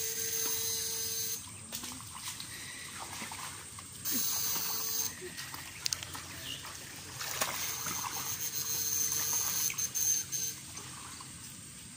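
Muddy shallow water sloshing and splashing as people wade through it, with a few sharp knocks. A steady high-pitched tone sounds over it in three stretches, starting and stopping abruptly.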